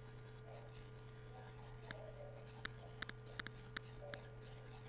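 About eight sharp clicks of a computer mouse, several in quick pairs, as it is worked on screen, over a steady electrical hum.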